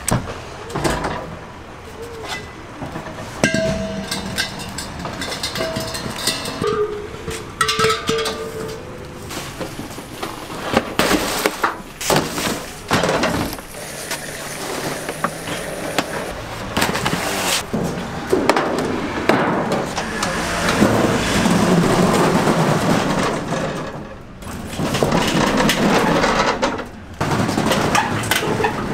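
Clatter and knocks of stall equipment being handled and moved: metal frames, plastic coolers and drum cookers bumped and set down, with voices in the background.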